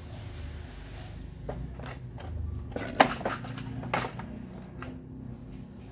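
Handling of Osterizer blender parts during repair: a few sharp clicks and knocks of parts being fitted or set down, the loudest about three seconds in.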